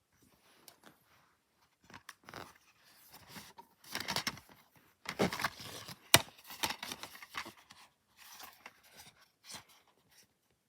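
DVD box set packaging being handled: irregular rustling and scraping of the case and its wrapping, with scattered clicks, the sharpest click about six seconds in.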